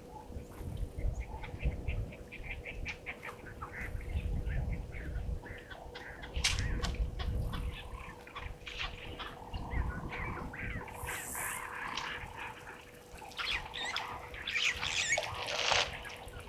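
Wild birds chirping and squawking, with a denser burst of calls about three-quarters of the way through, over a low uneven rumble and a faint steady electrical hum.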